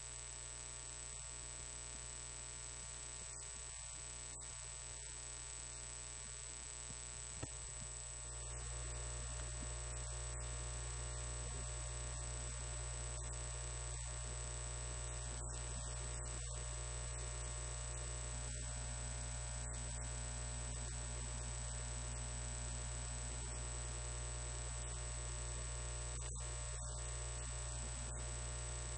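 Steady electrical noise with no speech: a constant high-pitched whine over a low hum, the hum growing stronger about eight seconds in.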